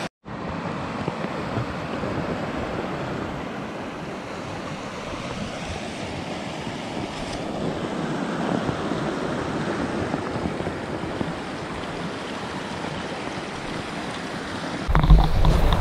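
Small mountain river rushing over rocks in a riffle, a steady, even rush of water. Near the end a louder low rumble of wind buffeting the microphone comes in.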